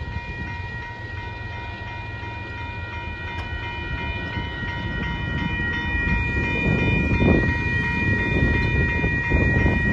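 Railroad grade-crossing warning bell ringing with a fast, even, tinny clang. It stops near the end as the crossing gates rise after the train has cleared. A low rumbling noise grows louder through the second half.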